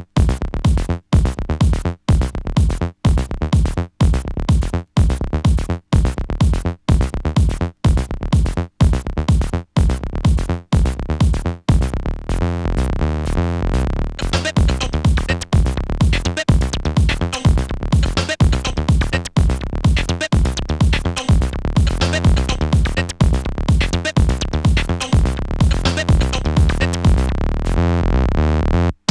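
Electronic dance track played from a vinyl record: a drum-machine beat with synths. For the first twelve seconds it cuts out briefly about once a second, then it fills out into a steady, dense groove.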